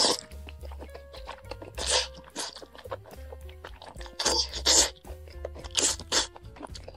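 A person slurping and chewing braised noodles with green beans: several loud, wet slurps a second or two apart, over background music.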